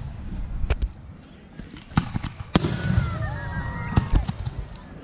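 Aerial fireworks bursting: several sharp bangs a second or so apart over a low rumble.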